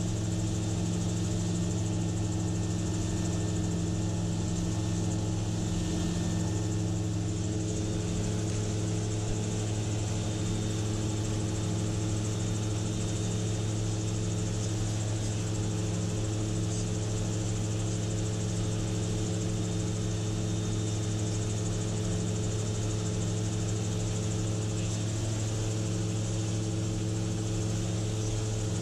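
Gyrocopter's engine and propeller running steadily in level flight, a constant drone heard from the cockpit.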